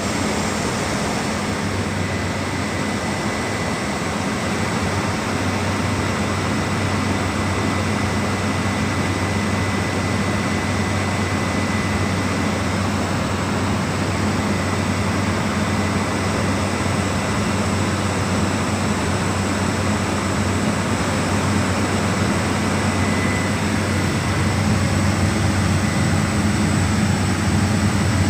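Small propeller aircraft's engines droning steadily, heard from inside the cabin, with a low hum and a thin high whine, growing slightly louder towards the end.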